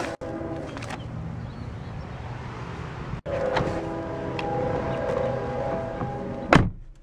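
Electric power-seat motors of a 2008 Mercedes-Benz E63 AMG's passenger seat running, a steady whining hum. Near the end a car door shuts with a loud thump.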